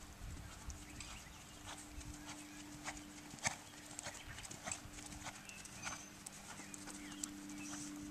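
Hoofbeats of an Oldenburg gelding trotting on sand arena footing: a clip-clop of sharp strikes, about two to three a second, over a faint steady hum.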